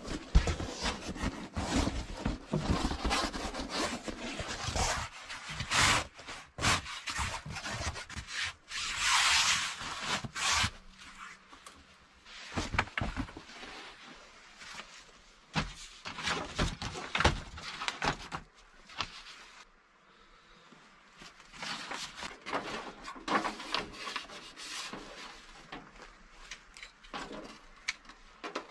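Fabric and gear rustling and scraping as things are handled, with scattered knocks on wood and a longer hissing scrape about a third of the way in.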